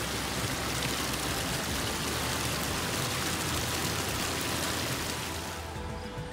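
Water spilling over a low concrete weir, a steady rushing hiss that drops away near the end.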